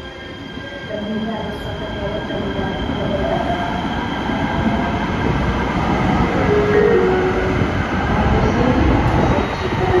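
Los Angeles Metro light rail train moving along an underground station platform, its rumble of wheels and motors growing steadily louder.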